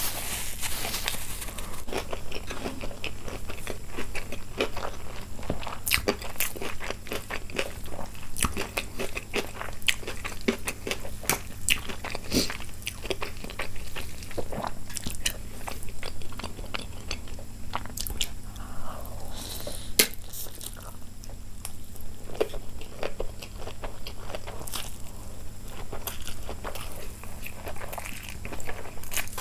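Close-miked eating: chewing and crunching food, with many sharp, irregular mouth clicks and smacks.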